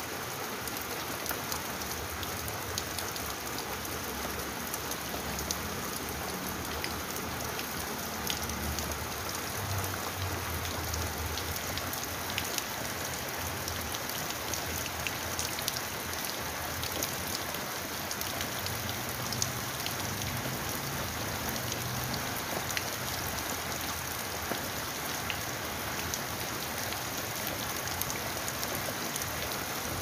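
Steady rain falling on a surface, an even wash of sound dotted with many small drop ticks.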